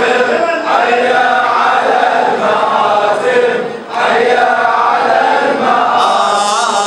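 Male reciter chanting an Arabic Muharram mourning lament (latmiya) into a microphone, with voices of the congregation joining in chorus. The chant is held in long melodic lines, broken by two short breaths.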